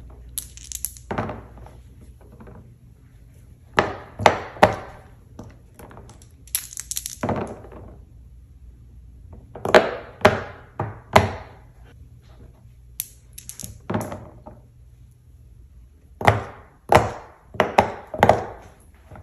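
A silicone pop-it fidget board being played by hand: dice rolled onto the board and its bubbles pressed in. This gives short pops and clicks in clusters every few seconds.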